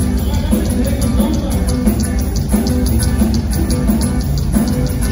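Live amplified band music from a group with tuba, guitars and drums, with a steady drum beat and heavy bass.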